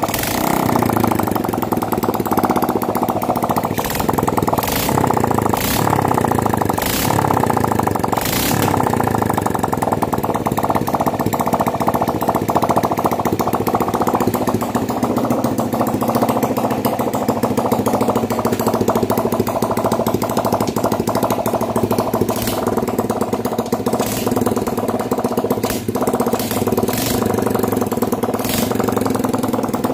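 Honda Bravo 100's single-cylinder four-stroke engine running after its rebuild, revved up and down through the first ten seconds or so, then settling to a steadier idle.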